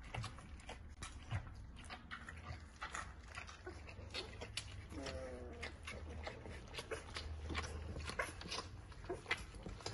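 Newborn Rhodesian Ridgeback puppies nursing, with many small wet suckling and smacking clicks throughout. A short whine comes about five seconds in.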